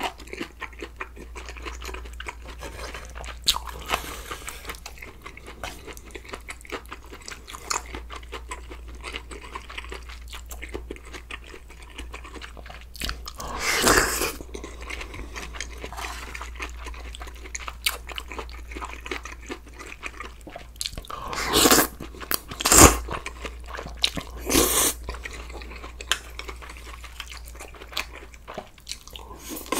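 Close-miked chewing and crunching of food, with a loud slurp of stew broth from a spoon about halfway through and several more slurping bursts later on.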